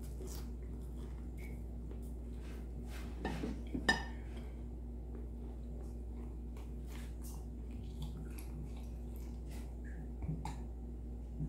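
Faint mouth clicks from chewing, then a ceramic mug clinking sharply about four seconds in as it is taken up, followed by quiet sips and swallows of milk from the mug.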